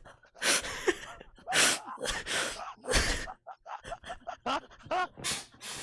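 A young man gasping for air in a fit of laughter: a run of loud, wheezing gasps about once a second, with short high squeaks of voice in between.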